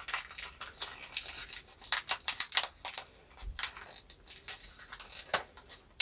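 Small plastic wrapper around a mini collectible crinkling and rustling as it is handled and opened by hand, with many short, irregular crackles.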